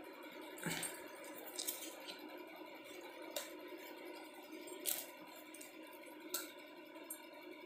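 Faint light clicks and taps, about six spread over several seconds, from paint pots and brush being handled while painting, over a steady low hum.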